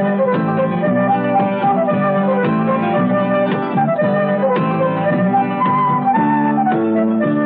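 Instrumental closing-credits music: a flute melody over plucked guitar notes.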